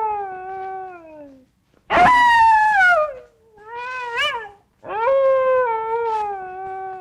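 Long, drawn-out animal howls, each a second or more and sliding down in pitch: a loud one about two seconds in, a shorter wavering one around four seconds, and a long one starting near five seconds.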